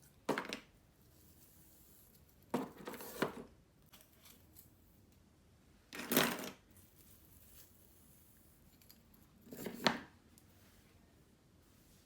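Hair rollers being pulled out of hair: four short rustling, tearing bursts a few seconds apart.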